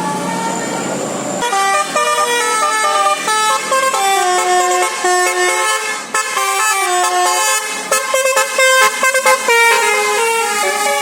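Indonesian bus 'telolet basuri' musical horn playing a tune of quick stepped notes, starting about a second and a half in, over a steady hum.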